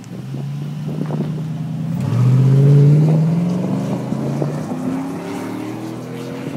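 2008 GMC Sierra 1500's V8 accelerating hard away from the microphone, its exhaust note rising in pitch. It is loudest and climbing two to three seconds in, drops in pitch at an upshift about four and a half seconds in, then climbs again as the truck pulls off.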